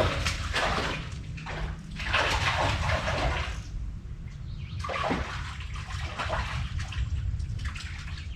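Stream water splashing and sloshing in three irregular bouts, over a low steady rumble.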